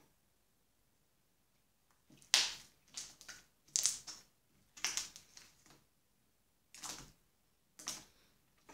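Pigment slime made from white glue and activator, kneaded and pulled by hand: a run of short, sharp crackles and squelchy pops about once a second, starting about two seconds in.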